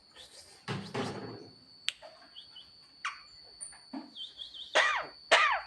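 Javan myna (jalak kebo) calling: scattered short high notes, then three loud calls near the end, each rising and falling in pitch. A noisy rustling burst comes about a second in.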